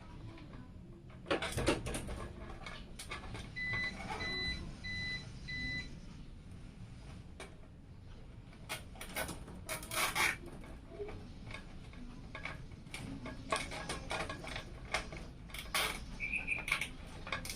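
Clicks, knocks and rattles of computer parts being handled and fitted during a PC build. A run of five short, evenly spaced high beeps comes a few seconds in.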